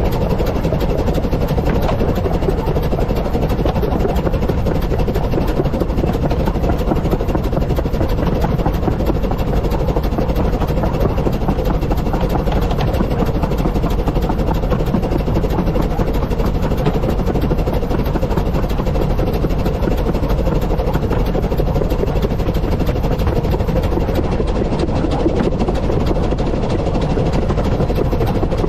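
A 15-inch gauge steam train, hauled by the locomotive River Mite, running steadily along the line: a continuous, unbroken running noise from the train under way.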